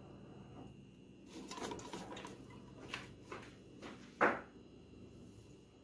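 Faint kitchen handling noises as annatto powder is shaken from a small cup into an aluminium pot of chopped vegetables: a short rustle about a second and a half in, a few light knocks, and one sharper knock a little after four seconds in.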